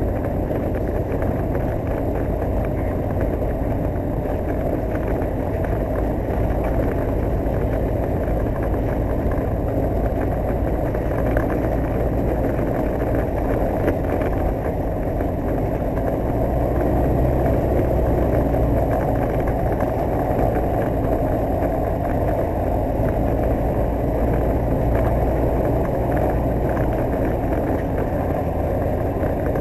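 A light aircraft's single piston engine runs at low power as the plane taxis over grass, heard from inside the cockpit. The engine note is steady, rising slightly for a few seconds a little past halfway through.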